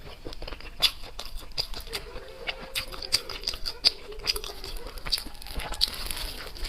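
Close-miked eating: a mouth chewing and crunching food, with irregular sharp crackles and wet mouth clicks.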